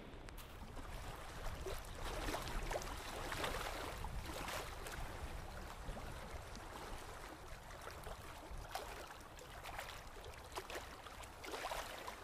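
Small waves washing over a shingle beach: a soft hiss of water and pebbles with gentle swishes every second or so, over a low rumble.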